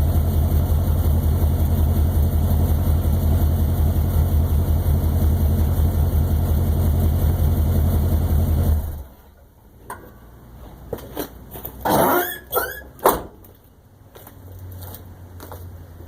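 Chevy 400 small-block V8 running steadily at idle through Hedman headers and Patriot Smitty 30-inch mufflers on a true dual exhaust with no crossover pipe, then shut off about nine seconds in. A few short squeaks and clicks follow.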